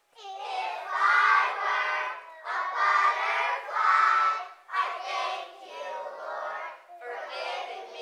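A group of young children singing together in unison, starting abruptly and going in sung phrases with brief breaths between them.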